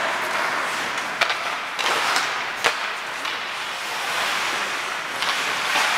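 Ice hockey skates scraping and carving on the rink ice during open play, a steady hiss with a few sharp knocks of sticks and puck, about a second in and again near the middle.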